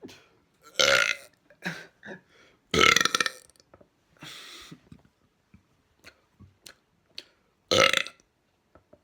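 Someone burping loudly on purpose, three big burps about a second in, about three seconds in and near the end. Smaller burps and clicks come in between.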